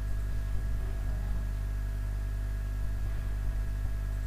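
Steady electrical hum with a faint hiss in the recording, with no speech.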